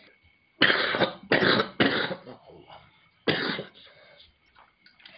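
A person coughing: three quick coughs in a row, then a fourth about a second later.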